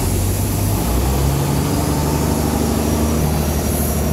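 Small wooden boat's engine running under way, a steady low drone whose note changes about a second in.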